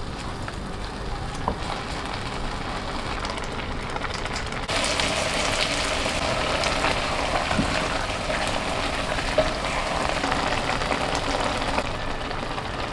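Steady crackling, sizzling hiss of food cooking in a pot or pan, growing louder and brighter about five seconds in.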